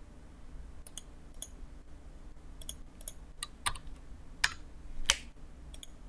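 Computer keyboard keys and a mouse being clicked while a file name is edited and saved: about a dozen short, scattered clicks, the loudest two coming about four and a half and five seconds in.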